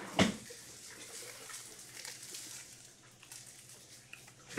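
Trading cards being handled and flipped through in the hands, a faint rustle and light card ticks, with one short loud noise about a quarter second in.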